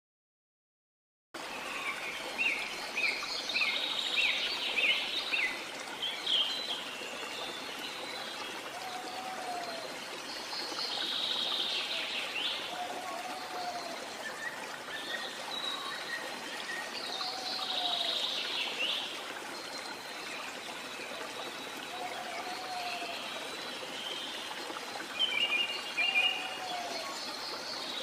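Rainforest ambience: the steady rush of a waterfall with many birds chirping and calling over it, busiest at the start and again near the end. A short, low call repeats about every four or five seconds. The sound starts after about a second of silence.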